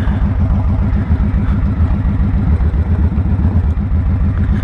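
Victory Hammer motorcycle's V-twin engine running steadily as the bike is ridden, with a rapid, even low throb.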